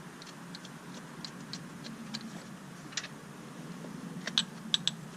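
Light, irregular metal clicks and ticks of a hand tool working the throttle body bolts as they are tightened, with a small cluster of sharper clicks near the end.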